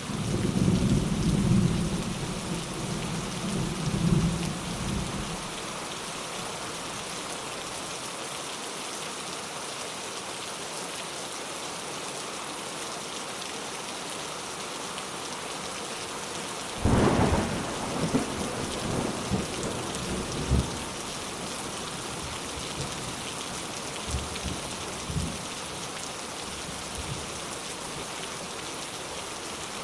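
Steady rain falling, with thunder: a rumble at the start that dies away after about five seconds, then a sharper thunderclap about halfway through that rolls on for a few seconds, followed by a few fainter rumbles.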